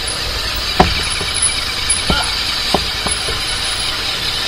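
Royal Enfield Interceptor 650's parallel-twin engine running at low speed in street traffic, with several short sharp knocks, the loudest about a second in.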